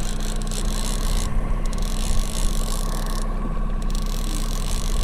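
Boat motor running steadily at trolling speed, a constant hum with wind and water noise over it.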